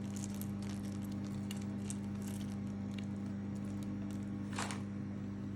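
A steady low electrical hum, with scattered small clicks and crackles over it and a louder rustle about four and a half seconds in.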